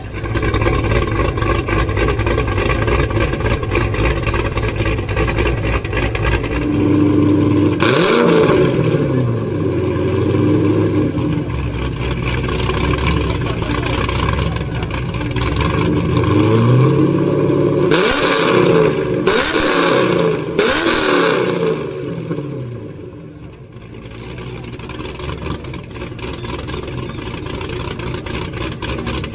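V8 engine idling and being revved: one sharp blip about eight seconds in and three quick blips in a row a little past the middle, each dropping back down, before it settles to a steady idle.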